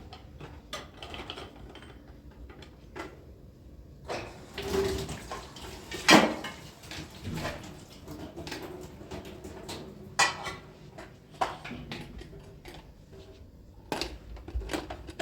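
Kitchen clatter: dishes, pots and utensils knocked and set down in a string of irregular clinks and knocks, the loudest about six seconds in.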